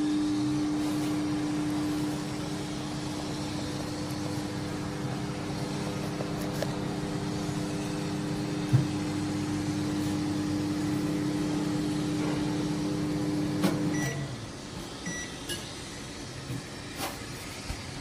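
Cornell 20L digital microwave oven running with a steady hum that stops abruptly about fourteen seconds in, followed by a couple of short beeps. A few sharp clicks come near the end as the door is opened.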